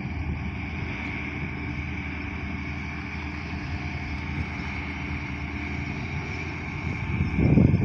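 Diesel engine of heavy road-construction machinery running steadily, growing louder with a deeper rumble near the end.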